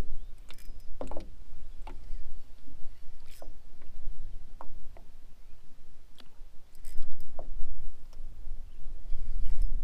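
Wind buffeting the microphone with a low rumble, and small waves slapping against a small fishing boat's hull in about ten irregular short knocks.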